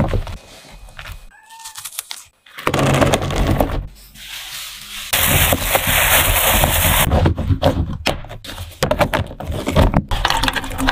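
Strawberry preparation sounds in quick cuts: a steady hiss about five seconds in as sugar is poured over frozen strawberries in a plastic box, then frozen strawberries clattering and knocking against the plastic as the lidded box is shaken.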